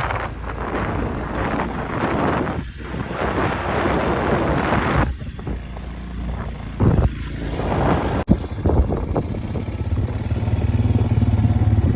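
Four-wheeler engine running under wind blasting the microphone. After a sharp click about eight seconds in, the wind drops away and the ATV's steady engine hum comes through plainly, growing louder near the end.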